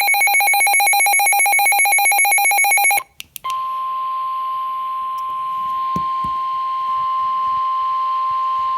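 A weather radio receiver's electronic alarm warbling rapidly for about three seconds, cut off with a couple of clicks, then NOAA Weather Radio's steady single-pitched 1050 Hz warning alarm tone over faint static hiss. The tone signals that an emergency warning broadcast is about to follow.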